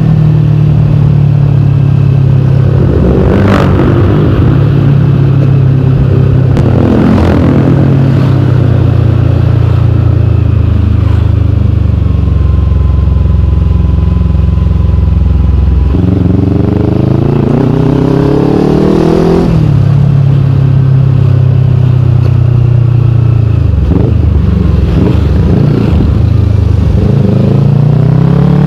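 Kawasaki Ninja 250fi parallel-twin engine running through a KP16 aftermarket exhaust while riding. Long steady stretches are broken several times by the revs climbing and then dropping back, as in accelerating through the gears, with the longest steady run in the middle and repeated rises near the end.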